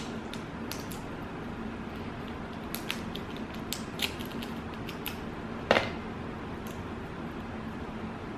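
Eating sounds from a seafood boil meal: scattered small clicks and cracks, with one louder crack a little past halfway, over a steady low hum.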